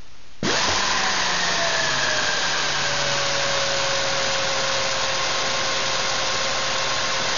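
Pneumatic (air) drill starting up about half a second in and running flat out, spinning a car alternator that is charging a battery: a loud rush of exhaust air with a whine that slides down slightly over the first couple of seconds, then holds steady.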